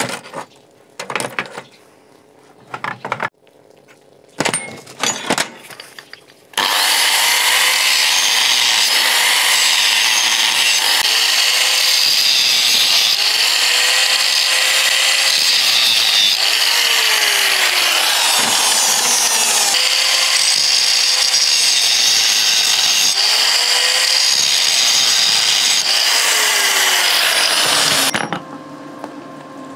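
Clicks and knocks from metal being handled, then an electric angle grinder starts about six and a half seconds in and works steel with a loud hiss. Its motor note dips and recovers about every second and a half as the disc is pressed into the metal and eased off. It stops shortly before the end.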